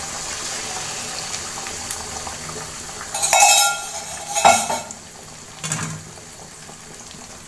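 Beaten eggs sizzling as they are poured into hot oil in an aluminium kadai, with two loud metallic clanks a little past the middle, then a quieter steady sizzle as the egg sets.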